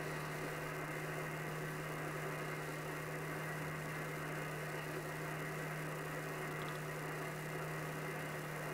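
Shortwave receiver's speaker giving steady band noise, a hiss cut off above the voice range, as the radio is tuned upward in upper sideband through empty frequencies around 27.6 to 27.8 MHz. A steady low hum sits under the hiss.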